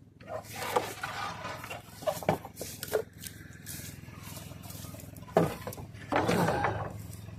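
Wooden boards knocking and scraping as they are pulled from a scrap lumber pile, with one sharp knock about five seconds in, over a steady low hum.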